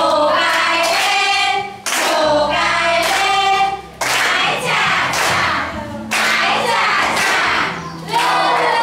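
A song sung in phrases of about two seconds, with short breaks between them, over an instrumental backing with a steady bass.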